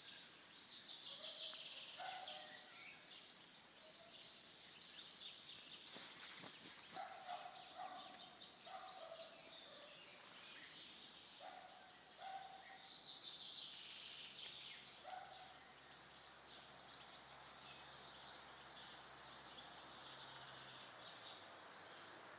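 Faint birdsong in a forest: several birds calling, with high chirping trills and lower short notes every second or so, thinning out in the last several seconds.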